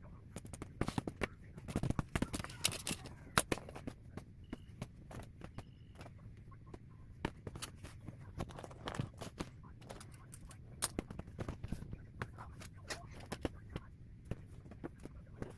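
Fidget toys being handled: irregular sharp clicks and taps throughout, loudest in the first few seconds.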